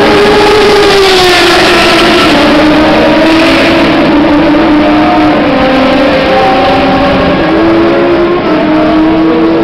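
Formula Renault 3.5 single-seaters' 3.5-litre V6 racing engines running, several at once and loud. One engine note falls in pitch over the first second or two, then a few engine notes hold and drift up and down in pitch.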